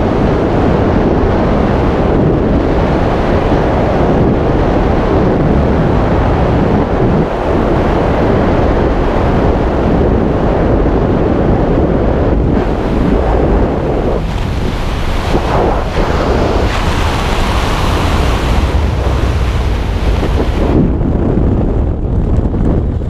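Wind rushing over a helmet camera's microphone in skydiving freefall: a loud, steady rush whose tone shifts about two-thirds of the way through and whose hiss thins out near the end.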